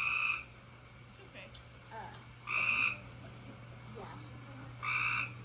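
A frog calling: three short calls, each about half a second, spaced about two and a half seconds apart.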